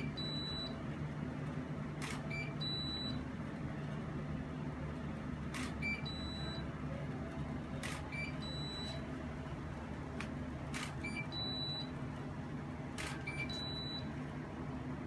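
A studio photo shoot: the camera shutter and studio strobes fire five times, every two to three seconds, each shot a sharp click followed by short high beeps as the strobe signals that it has recharged. A steady low hum runs underneath.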